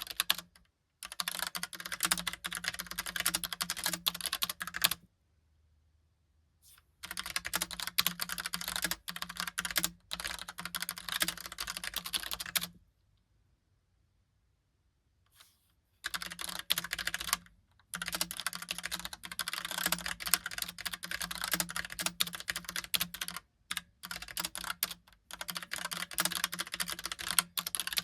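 Logicool Pop Keys typewriter-style mechanical keyboard being typed on quickly, in runs of several seconds separated by pauses of a few seconds.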